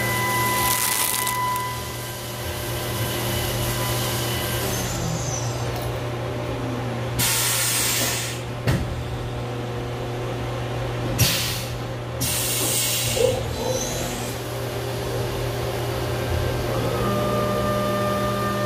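Haas VF2 CNC vertical mill cutting metal caliper brackets under flood coolant: a steady machine hum with high tones that change pitch about five seconds in and again near the end. Several loud hissing bursts of spray come through, the biggest in the middle, along with a couple of sharp clicks.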